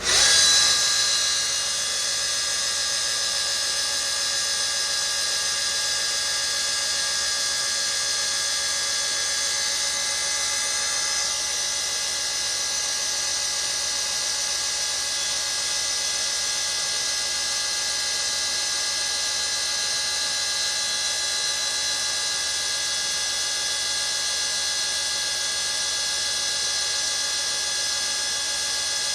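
2000s-era Star well pump kicking on suddenly, loudest for the first second or so, then running steadily with a high, even motor whine.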